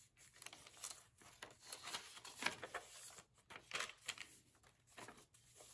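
Faint rustling of paper as the pages and tags of a handmade paper journal are turned and handled, in several soft, irregular swishes.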